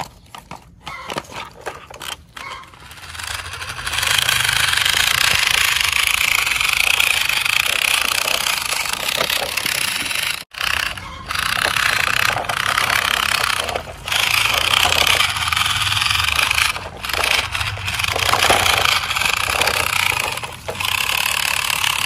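Plastic toy trucks rolling and scraping over dirt and stones: a few faint clicks at first, then from about four seconds a loud, steady rattling noise in long stretches with short breaks.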